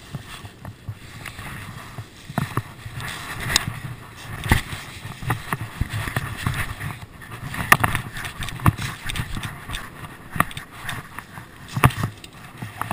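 Footsteps crunching through dry fallen leaves and then onto gravel, a steady run of uneven crunches and rustles.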